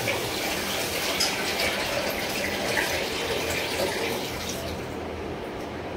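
Water running from a tap into a pot of uncooked rice, filling it to wash the rice. The steady rush thins out a little near the end.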